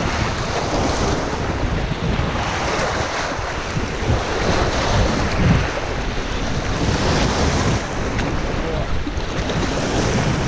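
Choppy river water splashing and lapping over shallow rocks around a grounded boat, with strong wind buffeting the microphone.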